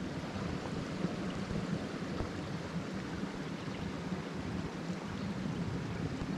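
Steady rushing of a small creek's running water, even and unbroken.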